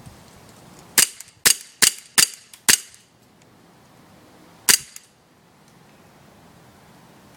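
CO2 blowback airsoft Colt M1911 pistol firing six shots, each a sharp crack with the slide cycling: five quick shots about half a second apart, then one more shot about two seconds later.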